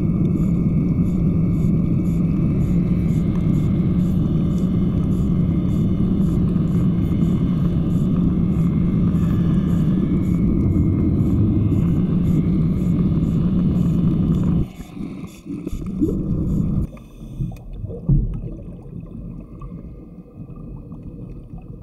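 Underwater scooter (diver propulsion vehicle) running underwater, a steady loud hum with rushing water. It cuts off suddenly about fifteen seconds in, leaving quieter, irregular sounds.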